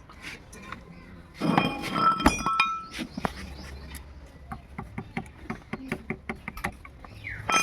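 Metal hand tools and parts clinking and clattering while a scooter is taken apart, with a burst of ringing metallic clinks about a second and a half in, then scattered small clicks and taps.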